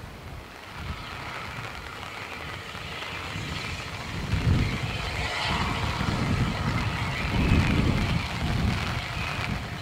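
Rebuilt Bulleid West Country Pacific steam locomotive hissing from its open cylinder drain cocks. From about four seconds in, slow, heavy exhaust beats come roughly a second apart and the sound grows louder as it starts away.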